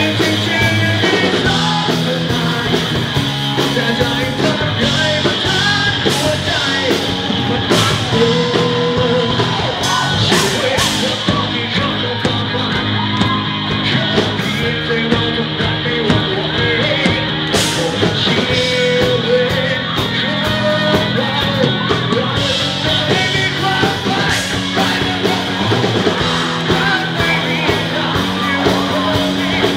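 Live rock band playing: distorted electric guitars, bass and drums under a male lead singer on a microphone, with the audience singing and shouting along.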